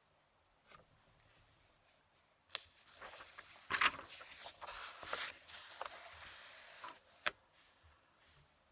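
Handling noises at a writing desk: a click, about four seconds of irregular rustling with small knocks, then one sharp click.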